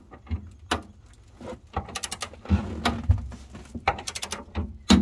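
Ratchet head of a torque wrench clicking in short, rapid runs as it is swung back and forth, tightening the hitch's centre bolt toward 60 ft-lb. A few low thumps come near the middle.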